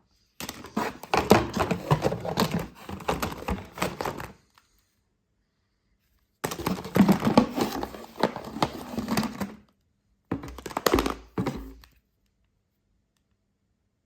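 Rapid, loud clicking and tapping close to the microphone in three bursts of a few seconds each, the last one shorter, then a sudden cut to silence.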